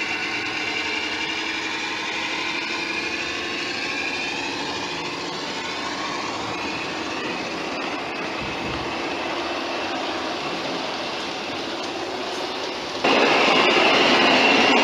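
Simulated diesel engine sound from a Dietz sound module in a radio-controlled garden-scale Deutz diesel locomotive, running steadily with its pitch drifting a little as the loco pulls its train. About thirteen seconds in, a sudden louder, high-pitched steady tone with hiss cuts in.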